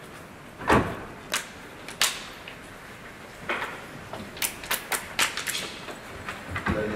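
Scattered knocks and clicks of handling at a pulpit: a heavier thump less than a second in, a few single knocks, then a quick run of sharper clicks a little past the middle.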